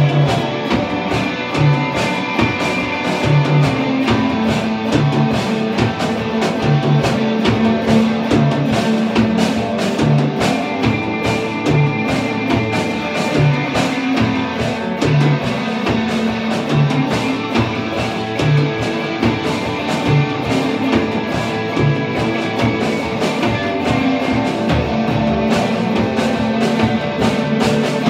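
Live instrumental punk and industrial metal from two electric guitars and a Gretsch drum kit. The drums keep a steady beat with a low pulse about once a second under ringing cymbals.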